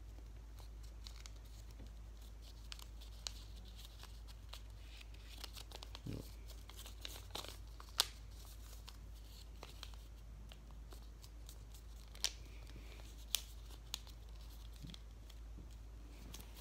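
A strip of printer paper being folded and creased by hand: faint, scattered crinkles with a few sharper paper crackles, the loudest about eight seconds in, over a steady low hum.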